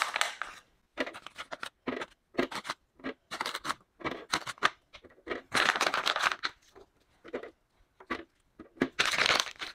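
Soil sponges being pushed by hand into the plastic grow baskets of a hydroponic garden: an irregular run of short scratching, rustling and clicking sounds, with two longer rustles, one about halfway through and one near the end.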